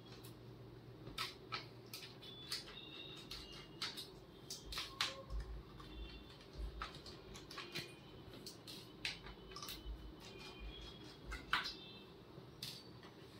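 Faint, irregular small clicks and taps of a precision screwdriver working screws on a laptop's plastic bottom case.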